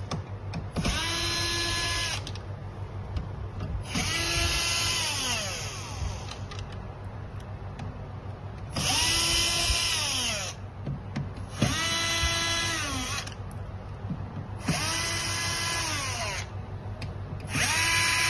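Cordless drill-driver backing out six screws one after another from a dehumidifier's plastic back cover. Six bursts of motor whine, each spinning up to a steady pitch, running for one to two seconds, then winding down.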